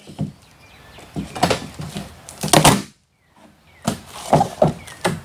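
Cardboard packaging of a table cart being pulled and shifted, with rustling, scraping and a few knocks, two longer scrapes and then a quick cluster of knocks near the end.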